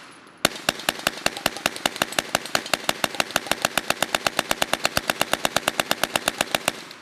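Tippmann TG-900 hand-cranked 9mm Gatling gun firing a rapid, even string of shots, about eight a second. The firing picks up about half a second in and stops just before the end.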